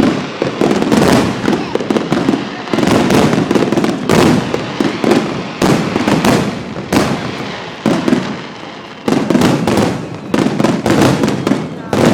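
Aerial fireworks shells bursting in close succession: a run of loud booms about every second or so, each trailing off in a long echoing rumble.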